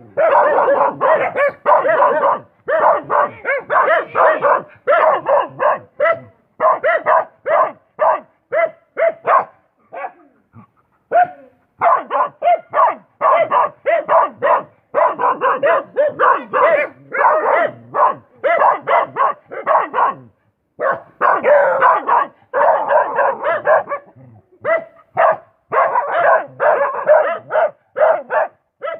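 Dog barking in quick, steady runs of many barks a second, with a couple of brief pauses.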